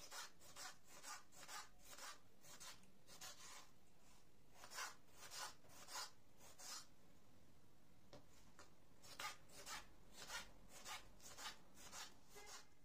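Kitchen knife slicing and dicing a peeled tomato on a bamboo cutting board: faint, quick cuts about two a second, with a pause of about two seconds in the middle.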